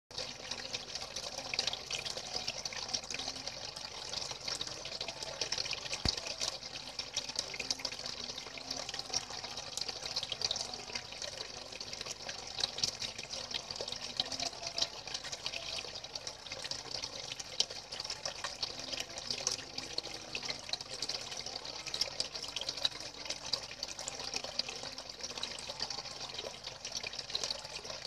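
Two thin streams of water pouring steadily onto a water surface, splashing and trickling without a break.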